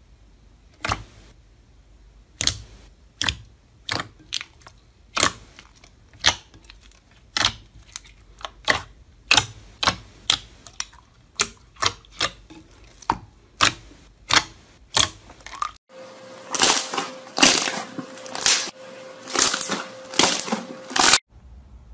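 Fingers poking and pressing soft pudding slime in a glass bowl, each press giving a sharp pop, about one or two a second. About sixteen seconds in, the sound changes to hands squeezing thicker slime with dense crackling over a faint steady tone, which cuts off abruptly near the end.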